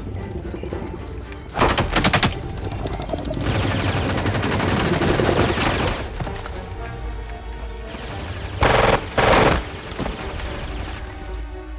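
Bursts of rapid automatic gunfire from soldiers' rifles: one burst about a second and a half in, and two more close together about nine seconds in.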